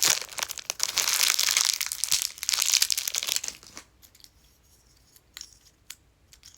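Thin plastic packaging crinkling as it is handled, a dense run of crackles lasting about three and a half seconds, followed by a few faint small clicks.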